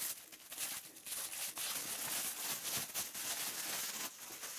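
Plastic stretch wrap being pulled and handled, a dense run of quick crinkles and rustles.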